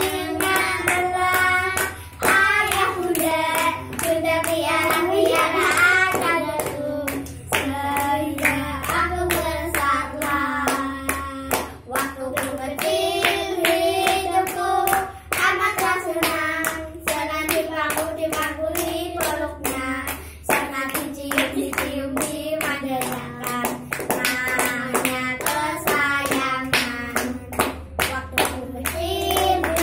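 A small group of young children singing an Indonesian children's song together while clapping their hands along with it.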